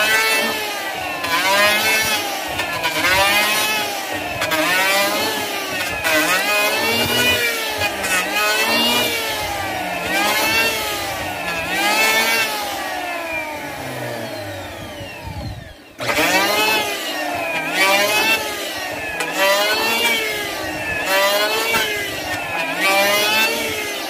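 Hitachi (HiKOKI) electric hand planer cutting hardwood in quick repeated strokes, its motor pitch dipping under load and rising again about every second and a half. About two-thirds through, the motor fades with falling pitch, then starts up again suddenly and resumes cutting.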